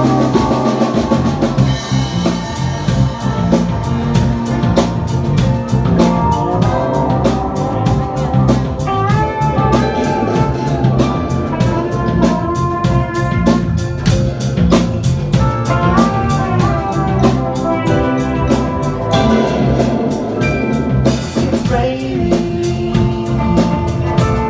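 Psychedelic rock band playing an instrumental passage. A drum kit comes in about two seconds in and keeps a steady beat under a wandering melody line and held chords.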